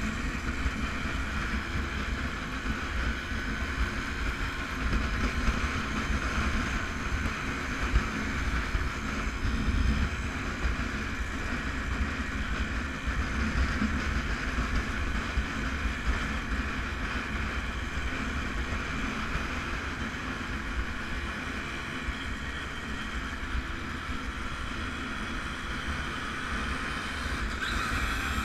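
Small vintage motorcycle riding along at a steady speed, heard from on board, its engine running evenly with road and wind noise.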